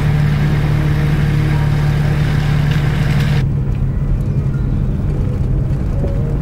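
4WD engines running with a steady low drone and a loud hiss over it; about three and a half seconds in the sound changes abruptly to a lower vehicle rumble without the hiss.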